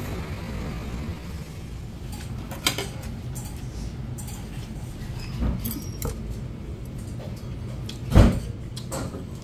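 Steady restaurant room noise with a few sharp metal clicks and knocks. The loudest, a knock with a dull thump about eight seconds in, comes as kitchen scissors and tongs go into a stainless steel bowl of cold noodles.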